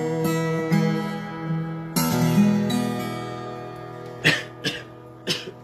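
Acoustic guitar strummed in the closing bars of a song, a few last chords ringing out and fading. Three short sharp noises come near the end.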